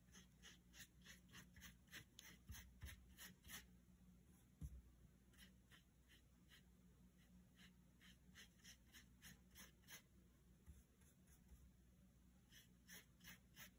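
Faint, quick strokes of a paintbrush scrubbing watercolour paint across paper, about three strokes a second, in three runs with short pauses between them. A soft knock about four and a half seconds in.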